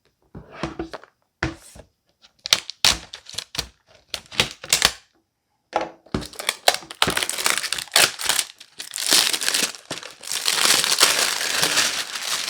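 A shipping box being cut and opened: a run of short scrapes and rips at the tape and cardboard, then from about halfway on a continuous crinkling and rustling of the packaging being pulled apart.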